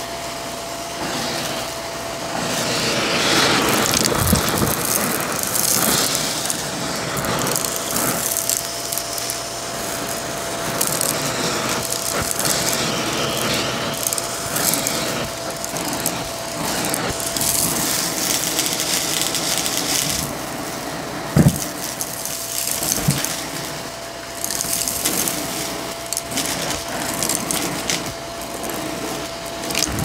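Shark vacuum cleaner running with a steady motor whine while sucking up pebbles, beads, buttons and coins from carpet, the debris rattling and crunching through it. A sharp knock about 21 seconds in, and a smaller one soon after.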